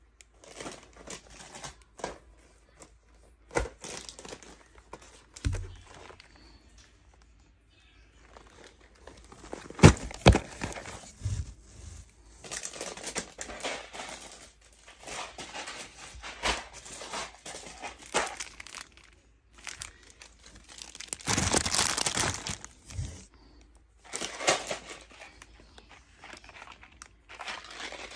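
Snack packages being handled and packed into a cardboard shipping box: plastic wrappers crinkling and cardboard boxes rustling and knocking against each other in irregular bursts, with a longer, louder rustle about three quarters of the way through.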